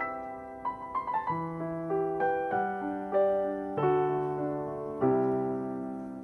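Background piano music: gentle chords struck every second or so, each ringing out and fading, with a quick run of notes about a second in.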